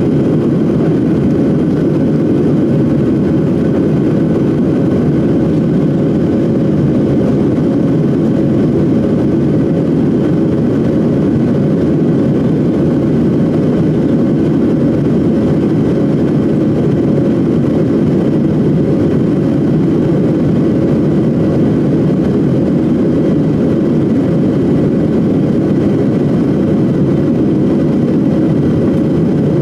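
Airliner cabin noise: a loud, steady jet-engine and airflow drone heard from inside the cabin, unchanging throughout, with a faint steady whine over it.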